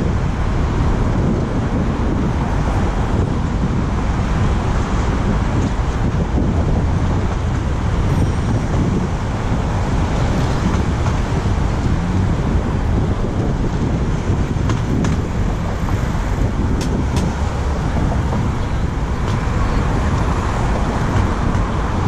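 Steady wind rush and rumble on a helmet-mounted camera's microphone while cycling, mixed with road traffic noise. A few faint ticks about three quarters of the way through; no horn sounds.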